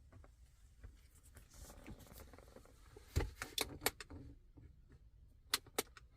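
Faint handling noise of hands working on small parts, with a quick run of sharp clicks a little past the middle and two more clicks near the end.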